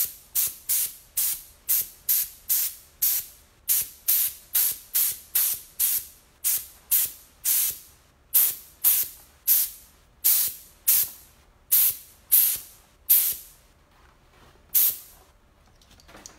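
A hand sprayer spritzing in quick short bursts, about two a second, each a sharp hiss that dies away fast. The spritzing stops about fifteen seconds in.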